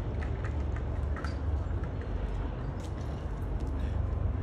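Steady low outdoor rumble, with light scattered crunches and clicks of feet and dog paws on wood chips.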